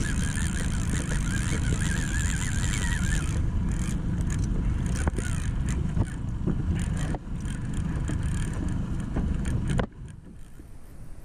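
Steady low rumble with scattered clicks and knocks as a conventional fishing reel is cranked against a hooked fish on a bent rod. The rumble drops off sharply near the end.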